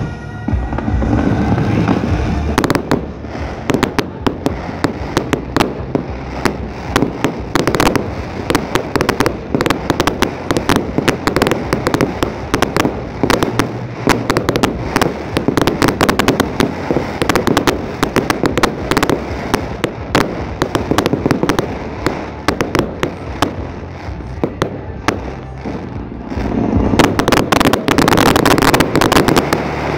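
Fireworks display: a continuous barrage of bangs and crackling from bursting aerial shells, growing louder and denser near the end.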